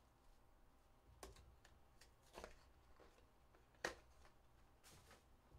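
Faint handling of a cardboard trading-card hobby box being opened: a few soft rustles and taps of card stock, with one sharper click about four seconds in.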